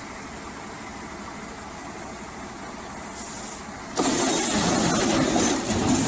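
A vehicle engine running steady, then much louder and rougher from about four seconds in, as if revved or put under load.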